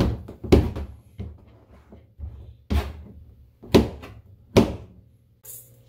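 Kitchen knife slicing through an eggplant onto a cutting board: a run of uneven knocks as the blade meets the board, about five loud ones among fainter taps.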